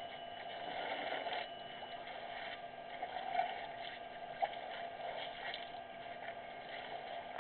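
Elephants drinking at the water's edge: irregular sloshing and splashing of water, over a steady background hiss with faint steady tones.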